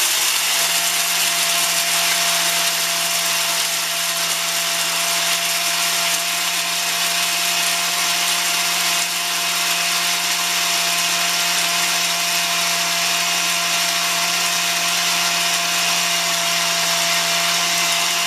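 Countertop blender running on high, grinding cracked corn into cornmeal: a steady motor whine over a constant hiss, the pitch rising slightly at the start and then holding.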